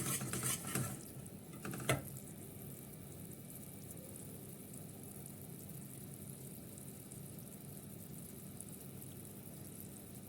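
Flour and ghee roux cooking in a pan, sizzling faintly and steadily. Stirring clinks against the pan stop about a second in, with one knock just before 2 seconds.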